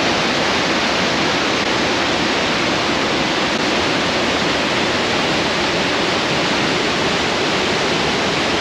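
River rapids: a fast, high river tumbling white over rocks, a steady loud rush of water with no change.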